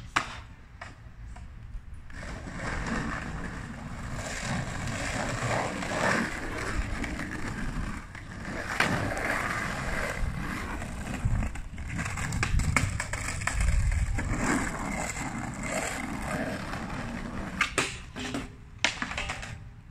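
Skateboard wheels rolling over rough asphalt, a steady grinding rumble, followed near the end by a few sharp clacks as the board hits and rides a low flat rail.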